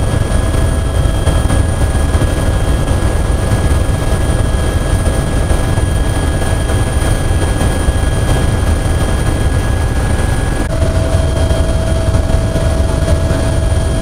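Helicopter in flight heard from inside the cabin: a loud, steady deep rumble from the rotor and engines, with a few steady high whines over it. About ten seconds in, the whine tones change abruptly.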